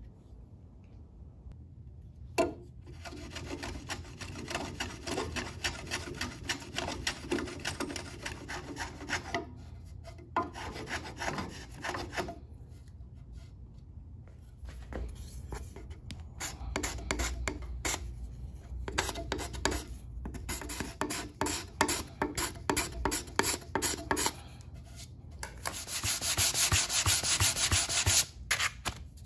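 A sandpaper-wrapped sanding block rubbed by hand over a mahogany picture-frame corner in quick back-and-forth strokes, levelling the filled miter joint. The strokes come in several runs with short pauses, and the last run near the end is faster and louder.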